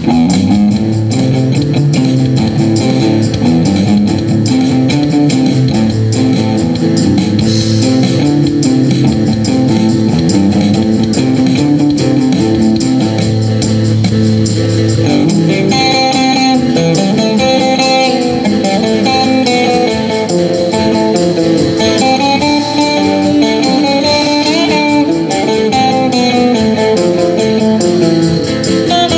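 Live band playing an instrumental passage: electric guitars and bass guitar over a drum kit, with a higher lead melody coming in about halfway through.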